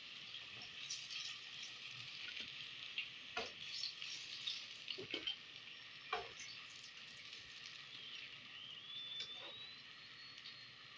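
Faint, steady sizzling of hot cooking oil as batter-coated bottle gourd (lauki) pakoras deep-fry in a kadhai, with a few sharp crackles.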